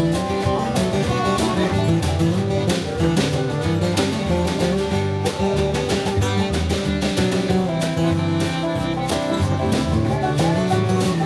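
A country band playing an instrumental break: strummed guitar over a bass line that steps from note to note, with a steady beat.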